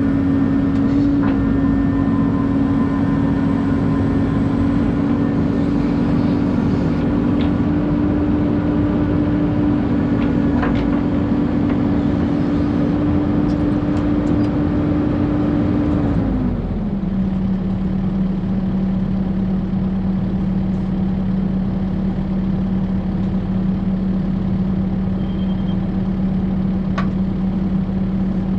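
Excavator's diesel engine running steadily; about sixteen seconds in its pitch drops as the engine speed falls, and it runs on steadily at the lower speed. A few faint clicks over it.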